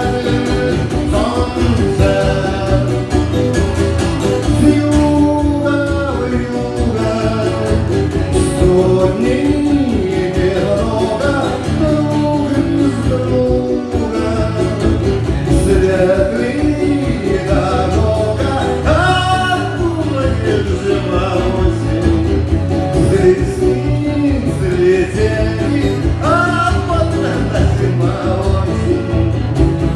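A live song: a male voice singing over guitar accompaniment, continuous.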